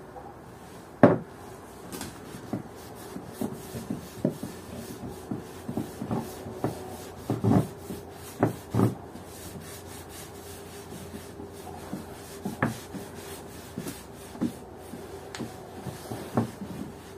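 Irregular light knocks and taps with some rubbing, as of objects being handled and set down, a dozen or more spread through, the sharpest about a second in, over a faint steady hum.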